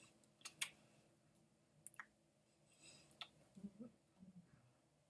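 Near silence: room tone with a few faint sharp clicks, about half a second, two seconds and three seconds in.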